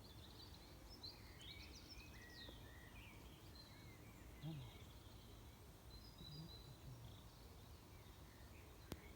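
Faint birdsong: small birds chirping and twittering over a low, steady outdoor background hum, with one sharp click near the end.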